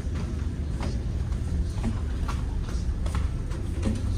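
Footsteps going down a passenger ship's stairs, sharp steps at roughly two a second, over the ship's steady low engine hum.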